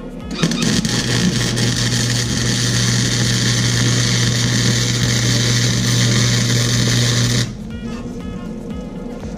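Flux-core wire welder running a bead along a crack in an exhaust manifold: a loud, steady sizzling arc with a low hum under it, starting about half a second in and cutting off abruptly some seven seconds later.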